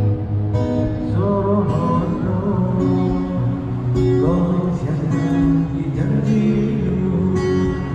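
Background music: a strummed acoustic guitar, with a voice singing.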